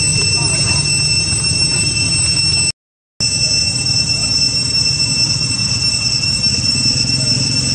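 Steady high-pitched insect drone holding several pitches at once over a low rumble. The sound cuts out completely for about half a second a little before the middle.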